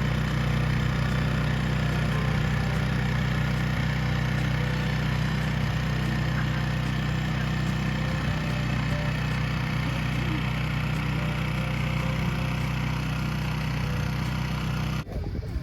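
An engine idling steadily with an even low hum, cutting off abruptly near the end.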